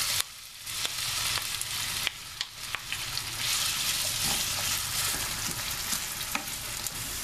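Diced potatoes sizzling in hot vegetable oil in a frying pan, stirred with a wooden spoon that clicks lightly against the pan now and then.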